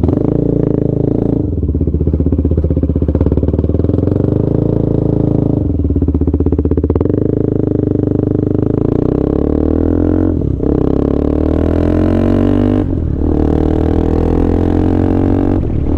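Motorcycle engine running under way. Its note changes pitch several times, with short breaks between.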